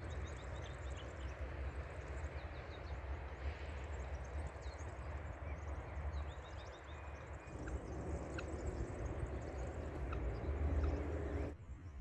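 A steady low rumbling noise with faint bird chirps above it, cutting off suddenly near the end.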